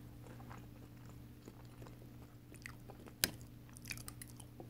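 Faint eating sounds as a forkful of seafood boil is taken and chewed: soft mouth sounds and light ticks, with one sharp click a little over three seconds in. A low steady hum runs underneath.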